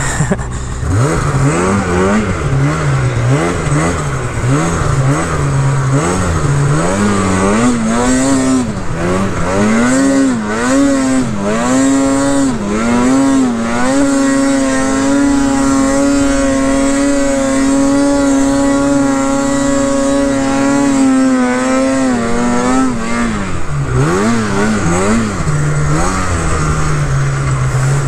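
Two-stroke mountain snowmobile engine worked by the throttle in repeated quick surges. It is then held at high revs for about eight seconds in the middle, drops back, and surges a few more times before settling lower near the end.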